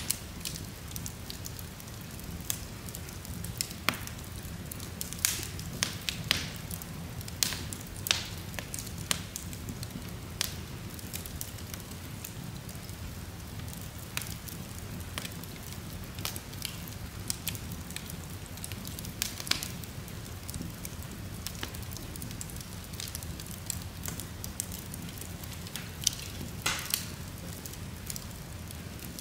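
Wood logs burning in an open fireplace: irregular sharp crackles and pops over a steady low rumble of the flames. The pops come thickest in the first third and again briefly near the end.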